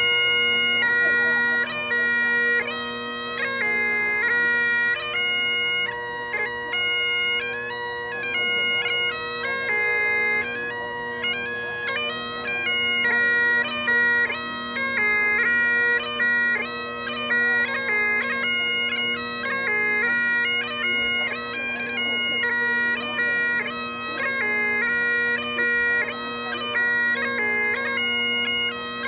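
Bagpipes playing a traditional tune: steady drones under a chanter melody that steps quickly from note to note.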